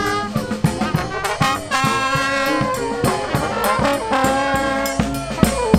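Marching brass band playing live: trombones, trumpet, saxophone and sousaphone hold and change notes together over repeated hits from a bass drum with a cymbal mounted on it.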